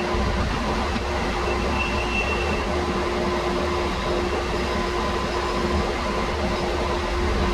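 Workshop machine running steadily under a continuous hum and rumble, with no pauses.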